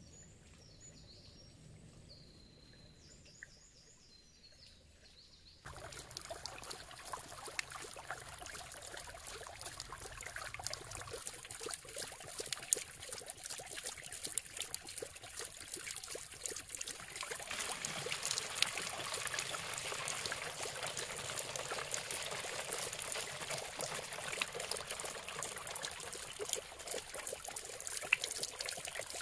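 Mountain spring water running and splashing in a steady trickle, starting abruptly about six seconds in and growing fuller about halfway through. Before it, a few faint high chirps over a quiet background.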